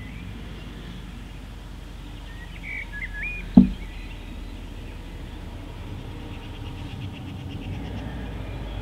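Outdoor rural ambience with a steady low rumble and a few bird chirps about three seconds in. A single handling knock follows moments later, the loudest sound, from the handheld filter at the camcorder.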